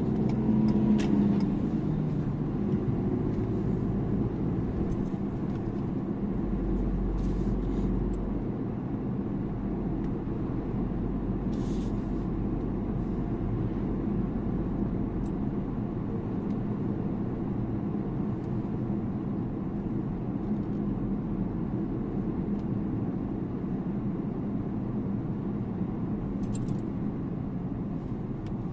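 Steady car road noise heard from inside the cabin while driving: low tyre and engine rumble. About a second in it briefly rises as an oncoming tractor with a trailer passes, its pitch falling as it goes by.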